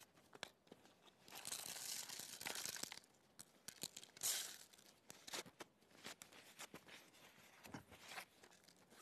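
Sheets of paper being torn apart by hand and crumpled, with a long tear about one and a half seconds in and a shorter one a little after four seconds, among small rustles and crinkles of the scraps.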